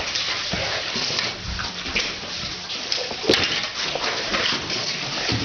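Several shovels digging into and scraping through wet mud, with irregular wet slaps and squelches as shovelfuls of mud are lifted and thrown, over a steady background noise.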